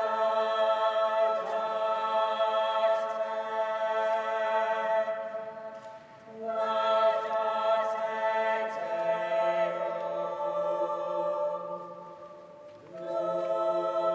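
A small choir sings long, sustained chords in three phrases, with brief breaks about six seconds in and near the end. A lower chord comes in partway through.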